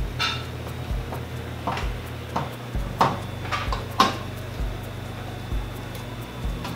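Screwdriver driving an M5 screw into a hard drive's mounting holes in a metal PC case: a string of metallic clicks and clinks, the loudest about three and four seconds in. Under it runs a soft low thump about once a second.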